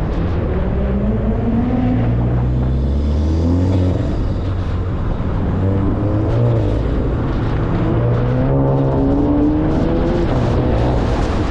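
Volkswagen GLI's turbocharged four-cylinder engine accelerating hard on an autocross run, its pitch climbing several times as it pulls and then easing off, over heavy wind and road noise.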